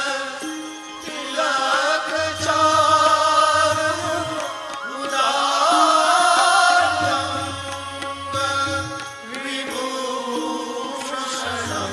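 Indian devotional music: a wavering melodic line over a low bass note that returns every two to three seconds.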